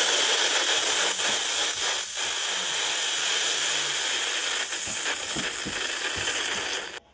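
A man's long, harsh, breathy scream, distorted into a loud, steady hiss, cutting off abruptly at the end.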